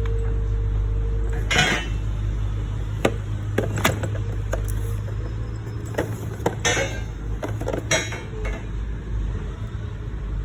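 Steel coil springs being handled, with scattered sharp metallic clinks and knocks and a few short scraping rustles over a steady low hum.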